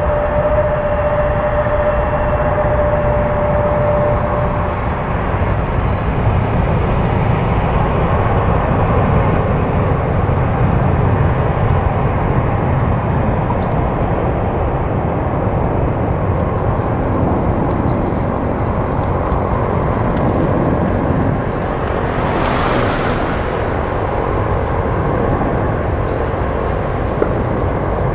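Boeing 767-300's General Electric CF6 turbofans as the airliner climbs away after take-off: a steady, even jet roar. A faint steady tone fades out in the first few seconds, and a brief hiss swells and fades near the end.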